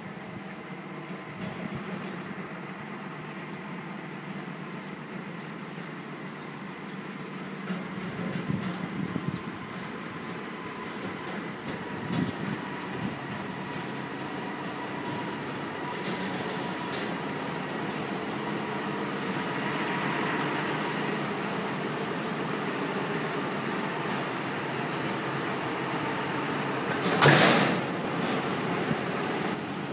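John Deere tractor's diesel engine running steadily while it pulls a loaded livestock trailer, growing slowly louder. A short loud clatter comes near the end.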